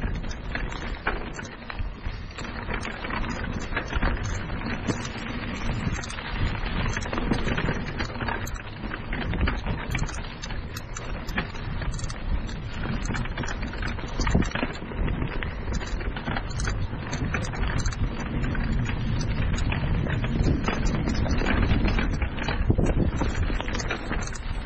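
Mountain bike rolling down a rocky dirt trail: a steady crackle and crunch of knobby tyres over dirt, gravel and loose stones, with the bike rattling and clattering over the bumps.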